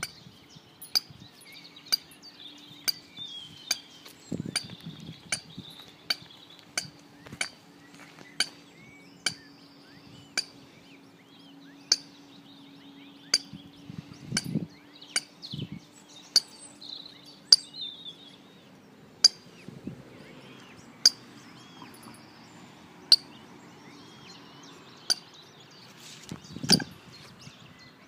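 Eurasian coots calling: short, sharp clinking calls repeated about once a second, over thin high peeping from the coot chicks.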